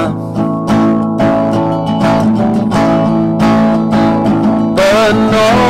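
Acoustic guitar strumming chords at a slow tempo, about two strums a second, accompanying a worship song. A singing voice comes back in near the end.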